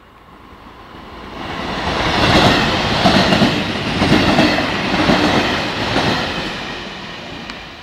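A Trenitalia regional passenger train passing close by, its wheels clattering over the rail joints. The noise swells to a peak in the middle and then fades away.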